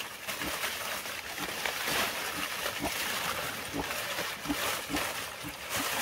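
Pigs grunting in short, irregular bursts, with wet sloshing and splashing.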